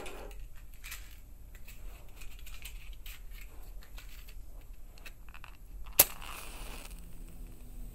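Small clicks and rustles of something being handled close to the microphone, then one sharp snap about six seconds in followed by a hiss lasting about a second.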